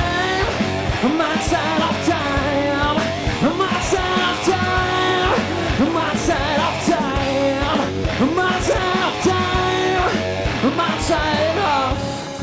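Heavy-funk rock band playing live: electric guitar, bass and drums with sung and shouted vocals. Near the end the full band drops out, leaving a guitar ringing.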